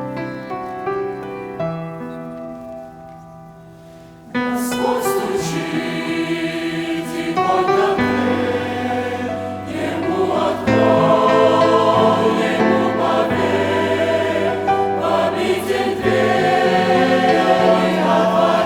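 Church choir singing a Russian-language hymn with keyboard accompaniment. The first four seconds are the soft, fading end of the piano introduction; then the choir comes in loudly at full voice.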